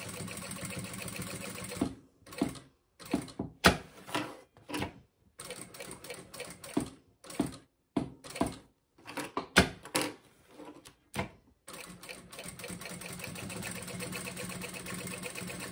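Sewing machine stitching a bag strap onto synthetic vinyl. It runs steadily for about two seconds, then goes in short stop-start runs with gaps and a couple of sharp clicks, and runs steadily again for the last few seconds.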